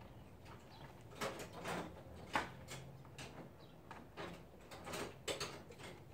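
Push-pin fasteners along the top of a Jeep Wrangler JK's grille being prised up and popped off with a flathead screwdriver: a series of irregular short clicks and scrapes, the sharpest about two and a half seconds in.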